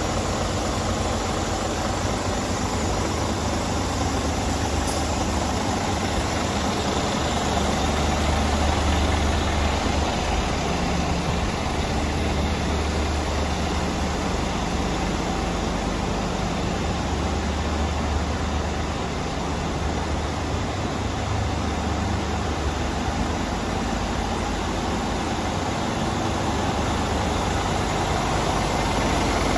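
Scania G400 tipper truck's turbocharged diesel engine idling steadily, a low even hum.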